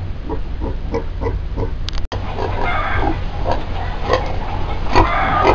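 Pigs grunting in short repeated calls, about three a second. After a brief break about two seconds in, the grunting gets louder and denser, with a short, barking quality.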